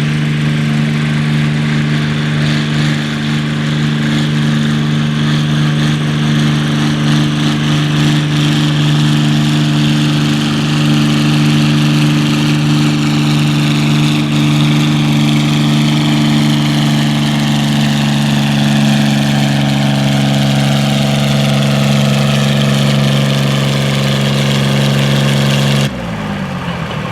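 Farm stock pulling tractor's engine running flat out under heavy load, dragging the weight-transfer sled at a steady governed speed. A higher whine slowly falls in pitch through the second half. About 26 s in the throttle comes off and the engine drops away as the pull ends.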